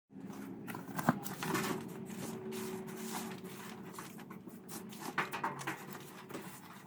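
Handling noises in a small workshop: rustling with scattered clicks and light knocks, the sharpest knock about a second in, over a faint steady hum.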